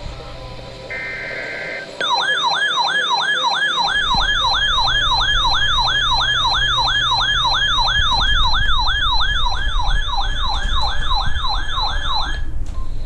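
One more second-long buzzy burst of EAS SAME header data, then a loud siren-like alert tone sweeping up and down about three times a second for some ten seconds and cutting off shortly before the end, over a low hum. It is the alert signal that opens a severe thunderstorm warning broadcast.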